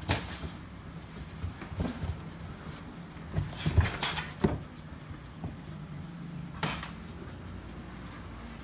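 Sparring fighters' gloved strikes and footwork on a canvas-covered mat: scattered thuds and slaps, one right at the start, a quick cluster in the middle and another a couple of seconds later, over a steady low hum.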